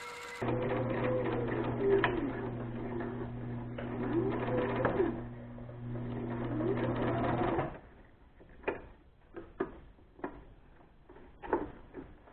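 Electric sewing machine running a zigzag stitch through stretch knit fabric, a steady hum for about seven seconds with a tone that rises and falls three times over it, then stopping. Short clicks and taps of handling the fabric and machine follow.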